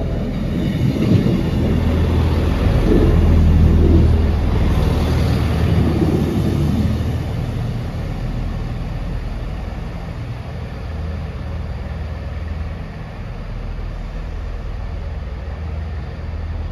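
Northern Class 158 diesel multiple unit arriving and running past close by, its engine hum and wheel noise loudest a few seconds in. It then settles to a steadier, quieter engine hum as it moves away down the platform.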